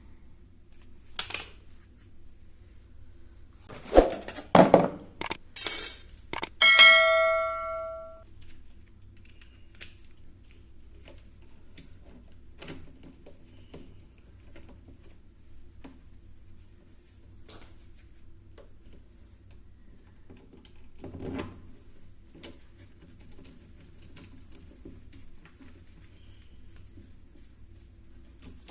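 Clatter of tools and metal parts being handled during a washing-machine repair: a few sharp knocks, then a quick run of loud knocks and a metal piece that rings out briefly with a bell-like tone, later one dull thud, over a steady low hum.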